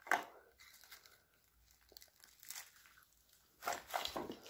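Footsteps crunching and crackling on a floor littered with debris, in scattered steps, loudest at the start and again near the end.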